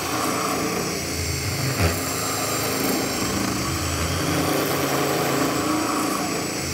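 Cordless drill spinning a rotary rasp inside a hole in a wooden board, grinding the wood away to widen the hole, with a steady high motor whine under the rasping. A brief knock about two seconds in.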